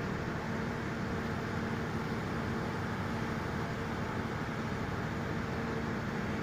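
Steady outdoor background noise, an even rumble and hiss with a constant low hum running through it.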